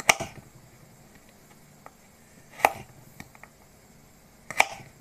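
Kitchen knife chopping diced carrot on a cutting board: three sharp knocks about two seconds apart, with a few lighter taps between.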